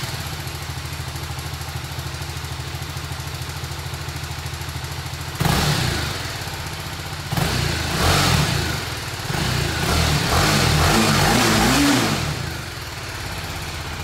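BMW G310R single-cylinder engine running through its stock exhaust: idling steadily, then revved three times, the last rev held for a couple of seconds, before it drops back to idle near the end.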